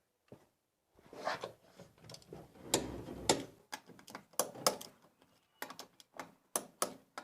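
Torque wrench ratcheting and clicking as the wheel's lug nuts are tightened, a run of sharp metallic clicks with short rattling spells.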